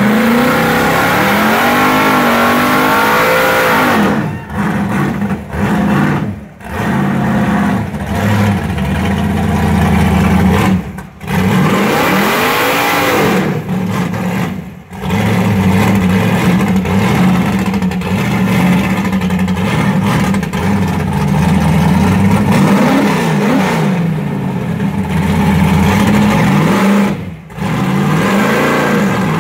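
Chevelle SS's V8 revving hard through a burnout with the rear tyres spinning. The revs climb and fall again and again, with several brief drops where the throttle is lifted and a long steady high-rev stretch in the middle.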